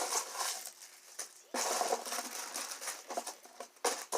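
Rustling and handling of small items and containers, with a dense rustle from about a second and a half in until near the end.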